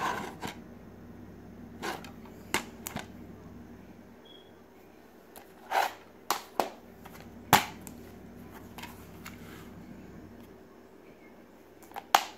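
Hard plastic DVD case being handled on a tile floor: about a dozen sharp clicks and taps with pauses between them as the case is turned over and set down on the tiles. The loudest tap comes about halfway through.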